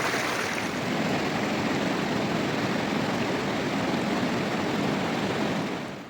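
Rushing river water: a steady, even rush that fades away near the end.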